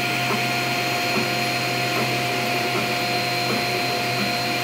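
Anet A8 3D printer running steadily while printing, a continuous whir with a few steady high tones over it from its fans and motors as the hotend works on the small top layers of the print.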